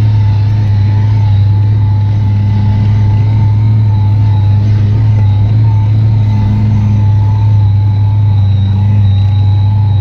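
Off-road vehicle's engine running steadily at cruising revs in fifth gear, heard from inside the cab as a loud, even drone with a thin steady whine above it.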